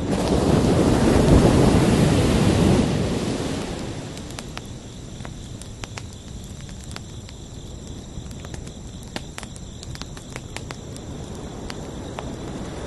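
An ocean wave surges in loudly over the first three seconds or so, then eases back to a quieter steady wash of surf. Crickets chirp steadily underneath as thin high tones, with scattered light clicks.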